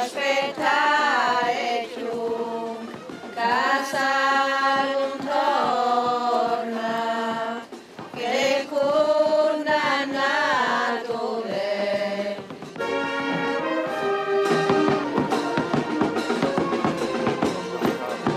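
Voices singing a slow chant in long held, gliding phrases. About thirteen seconds in the singing gives way to denser, busier music.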